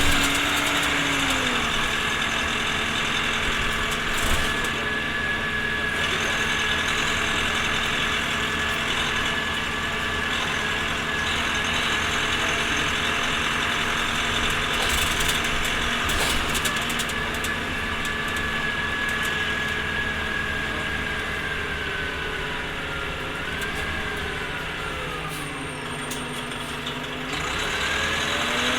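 Orion V transit bus running, with its engine note and a steady transmission whine. The whine falls in pitch as the bus slows in the second half, then the tones rise again near the end as it picks up speed.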